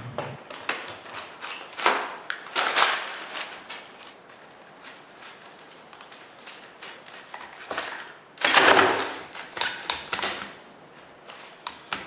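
Irwin Quick-Grip one-handed bar clamps being squeezed shut and handled while clamping glued wood strips around a ring mould: runs of quick ratcheting clicks and knocks of the clamps, busiest about two to three seconds in and again around nine to ten seconds.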